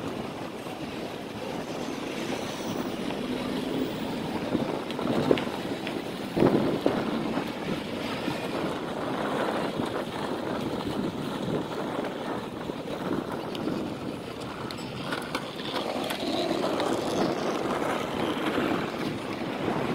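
Steady rushing noise of wind and ride noise from a camera on a moving bicycle, with a couple of short knocks about five and six and a half seconds in.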